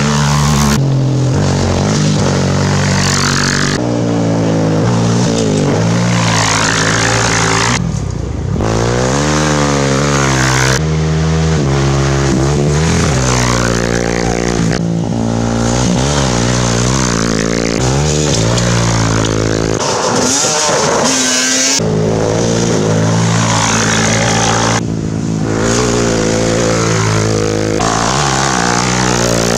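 A sport quad and off-road motorcycles racing past one after another, engines revving hard, the pitch climbing and dropping through gear changes as each goes by. The sound changes abruptly several times between passes.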